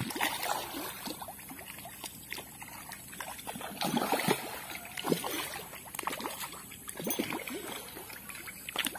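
Fish splashing and slapping at the pond surface as they snatch feed pellets, in irregular sharp splashes.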